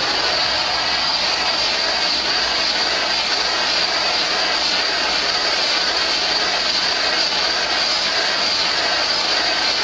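A small machine running steadily: an even rushing noise with a constant high whine.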